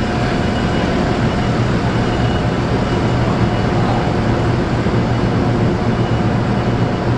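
Steady, loud drone of heavy plant machinery, with a low hum and faint steady higher whines running evenly throughout.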